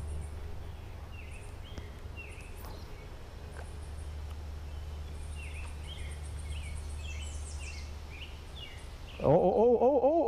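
Birds chirping in short, repeated, downward-sliding notes over a steady low rumble. About nine seconds in, a louder voiced hum rising and falling in pitch breaks in.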